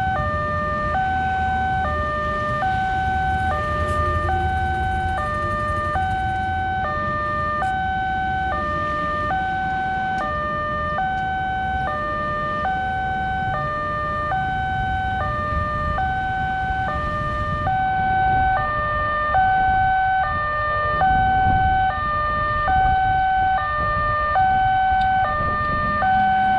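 Railway level-crossing warning alarm sounding while the barrier is closed: an electronic two-tone signal that alternates between a higher and a lower tone about every second and repeats steadily. A low rumble runs underneath.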